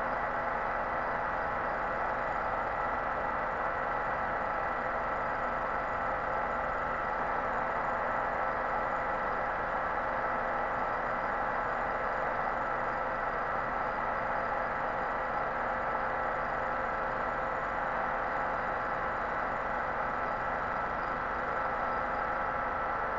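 Resurfacing machine's spinning cutter head taking a pass across the aluminium deck face of a ZAZ Tavria cylinder head, making a steady whine of several tones over a hiss. This is a flattening pass after the coolant passages were built up with argon (TIG) welding.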